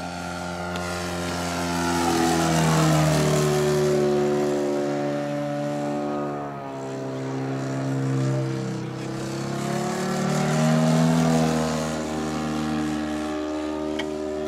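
Petrol two-stroke Titan ZG 80B engine and propeller of a large radio-controlled Piper Cub model in flight. The engine note swells and fades as the plane passes, loudest about three seconds in and again around eleven seconds, and its pitch rises and falls with each pass.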